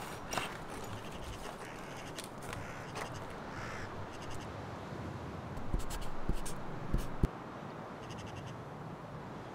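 Pen scratching on a paper notepad in short strokes over a steady background hiss, with a few low thumps about six to seven seconds in.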